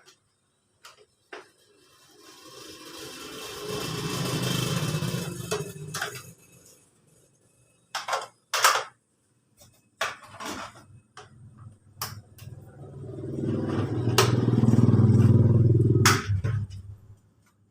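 A motor runs up twice, each time for about four seconds with a fast, low pulsing. Sharp metallic clinks and knocks come in between.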